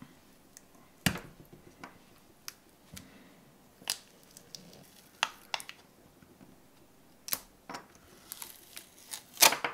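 Plastic wrapping and tape being peeled and pulled off a LiPo battery pack by hand: irregular sharp crackles and crinkles, thickening into a busy burst near the end.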